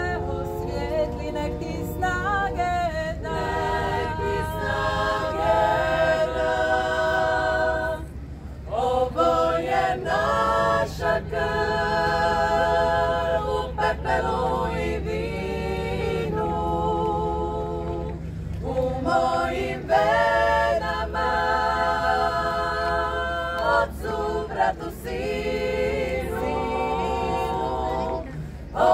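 A women's vocal group singing a cappella in several-part harmony, holding sustained chords with vibrato, in phrases broken by short pauses about eight and nineteen seconds in.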